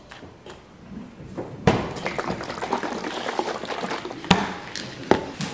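Plastic food containers handled on a stone kitchen counter: a sharp knock about one and a half seconds in, then a few seconds of liquid sloshing with small rattles and clicks as the bottle of strawberry milk is shaken, and two more sharp knocks near the end.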